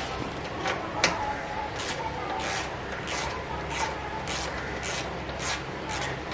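Socket ratchet wrench being worked back and forth on a bolt in a motorcycle's rear frame: short rasping ratchet strokes repeat about every two-thirds of a second, with one sharp metallic click about a second in.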